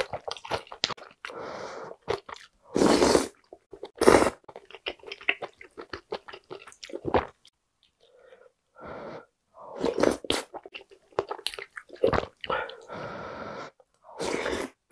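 Close-miked eating of beef short rib soup with glass noodles: wet chewing clicks throughout, with several longer slurps of broth and noodles from the spoon.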